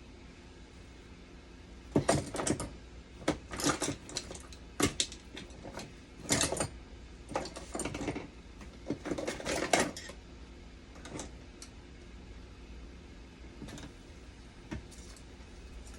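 Small metal tools and parts clinking and rattling as they are handled, in several short clusters, then only a few scattered light clicks after about ten seconds.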